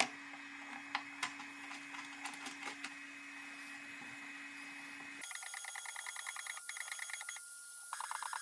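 Small clicks and knocks of metal hold-down clamps and bolts being set down and tightened on an MDF spoil board, over a steady low hum. About five seconds in the hum cuts out and a rapid, evenly pulsing electronic whir takes over.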